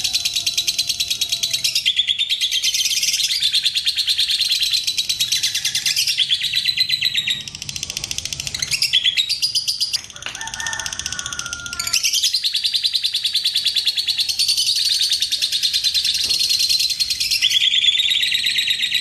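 Fischer's lovebird singing a long, very rapid chattering trill (the 'ngekek'), fast ticking notes running on almost without a break. Near the middle the trill softens for a few seconds into different, choppier calls, then resumes at full strength.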